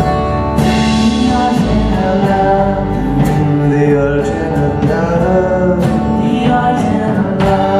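Live rock band playing an instrumental passage: guitar chords over bass and drums, with the bass and drums coming in at the start.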